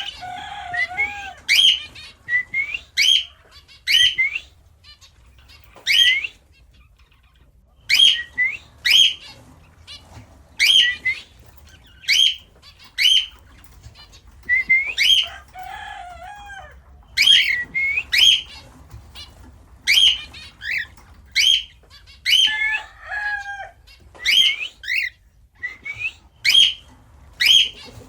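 Lutino cockatiel chirping: short, high calls repeated about once a second, each a quick sweep in pitch, with a lower warbling note now and then.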